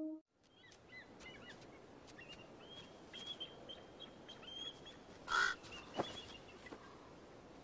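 Wild birds calling: a run of short, high chirps, then one loud, harsh raven call a little past halfway. A sharp knock follows about half a second later.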